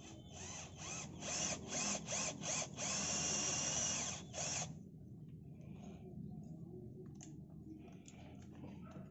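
Cordless drill working in a broken engine-support-bracket bolt hole in an engine block. It runs in about half a dozen short trigger bursts, then one steady run of over a second and a last short burst, and stops before halfway. Faint clicks of tool handling follow.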